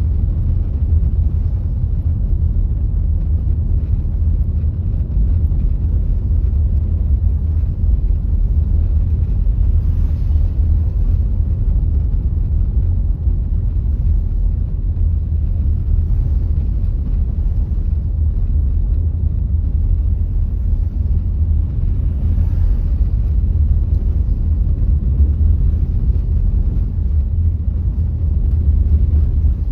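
A car driving slowly on a snowy road: a steady low rumble of engine and tyre noise. A faint hiss swells briefly twice, about ten seconds in and again about twenty-two seconds in.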